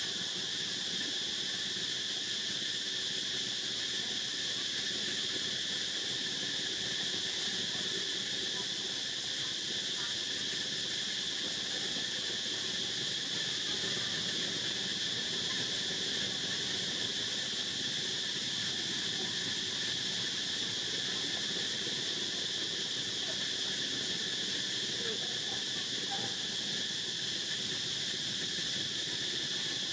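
Steady chorus of insects: a continuous high-pitched drone that holds at one level without a break.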